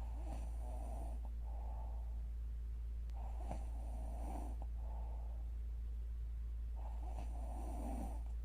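A young woman snoring in her sleep: three snoring breaths in, about three and a half seconds apart, each followed by a shorter breath out, over a steady low hum.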